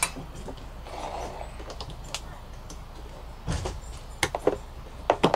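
Scattered light clicks and knocks from hands handling plugs, cables and metal electrical boxes while connecting an RV converter charger to its transfer switch, with a duller thump about three and a half seconds in.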